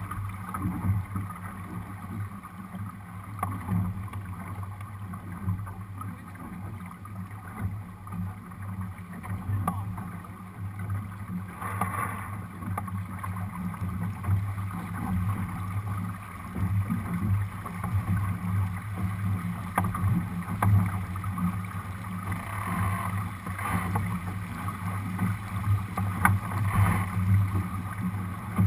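Steady rush of wind and water on a Lightning-class sailboat under way: wind on the microphone and water running along the hull, with a few brief louder swells of noise.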